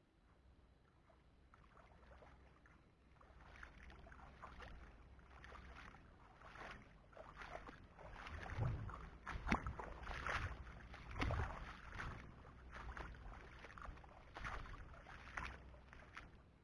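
Shallow water splashing and sloshing in irregular bursts, busier and louder from a few seconds in.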